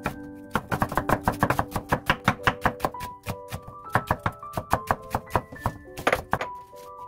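Chef's knife slicing an onion on a wooden cutting board: quick, even knocks of the blade striking the board, several a second, over background music with held notes.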